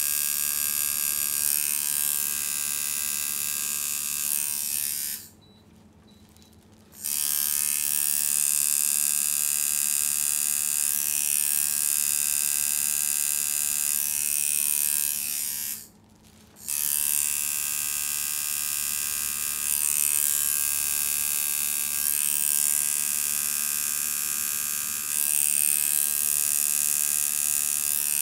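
Electric tattoo machine buzzing steadily as its needle works ink into skin. It stops twice, for nearly two seconds about five seconds in and briefly around sixteen seconds, then starts again.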